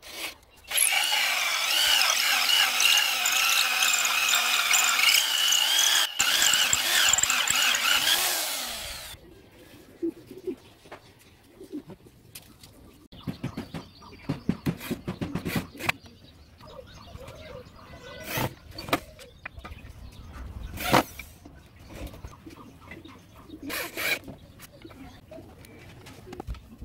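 Power drill with a hole saw cutting through a wooden board: a loud screech that wavers in pitch for about eight seconds, then stops. After that the drill runs in short, quieter bursts boring into the wooden frame, with scattered knocks.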